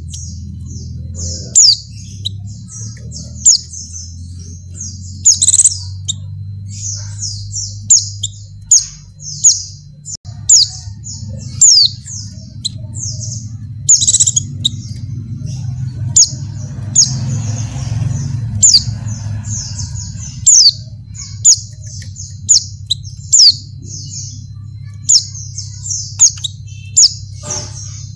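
Female white-eye (pleci) calling in breeding condition to draw males: a rapid, continuous run of short, high chirps, with louder sharp notes about once a second. A steady low hum lies underneath.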